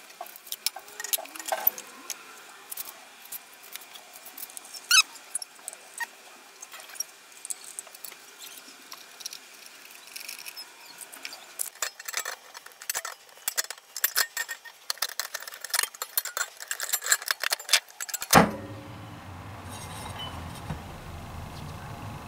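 Quick, light metallic clicks and clinks of pliers working thin wire scrollwork loose from a metal clock face, busiest in the last part. About four seconds before the end the clicking stops abruptly and a steady low hum takes over.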